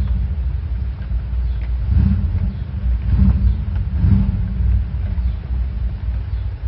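Steady low rumble of air from a fan buffeting the microphone, with three short soft sounds about two, three and four seconds in: a hen's hiccups.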